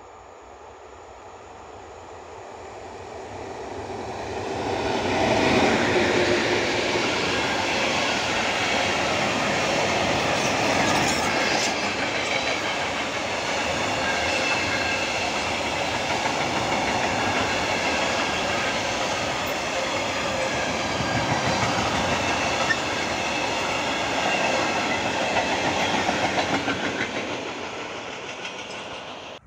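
Freight train of tank wagons hauled by an EU07 electric locomotive passing close by, its wheels clattering over the rail joints. The sound builds over the first five seconds, holds steady, and fades near the end.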